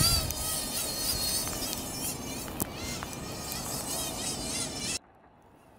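Brushless electric motor of a Traxxas M41 Widebody Catamaran RC boat running across snow: a high, buzzing whine that wavers up and down in pitch as the throttle is worked, with a sharp tick about two and a half seconds in. The whine cuts off abruptly about five seconds in.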